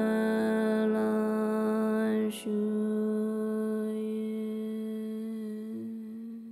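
Slow ambient music holding one low drone note with many overtones. The note breaks briefly about two seconds in, then fades gradually and stops abruptly near the end.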